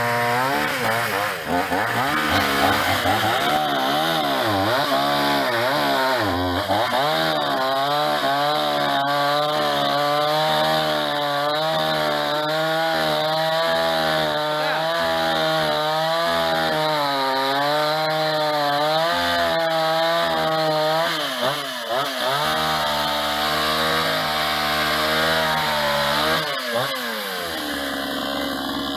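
Restored Jinco two-stroke chainsaw running, its engine pitch wavering up and down continuously as it is revved, easing to a slightly lower, quieter note near the end.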